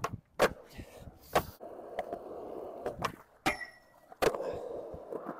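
Skateboard rolling, its wheels making a steady rumble, broken by about six sharp clacks of the board popping and landing.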